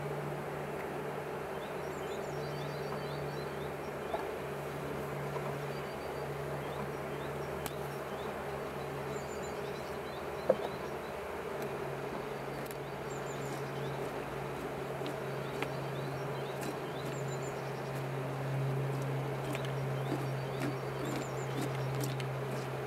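Honeybees buzzing over an open hive, a steady low hum, with one sharp click about ten seconds in.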